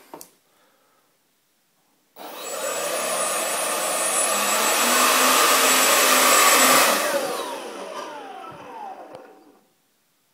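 Twin 70 mm electric ducted fans on a homemade RC jet spooling up with a sudden start about two seconds in, a rushing whine that grows louder at high throttle. At about seven seconds they are throttled back and wind down, the whine falling in pitch until they stop just before the end.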